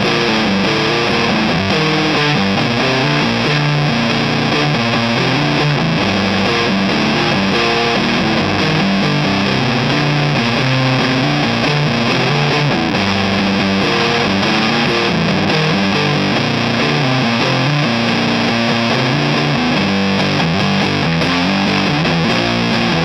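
Electric guitar played through a Madbean Sprout fuzz pedal, a clone of the Colorsound One Knob Fuzz, with the guitar's volume full up: continuous riffs with heavy, saturated fuzz and a hint of Velcro-like ripping in the texture.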